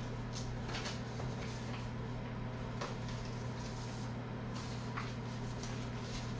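Room tone with a steady low hum, and a few faint, scattered clicks and rustles of small objects being handled.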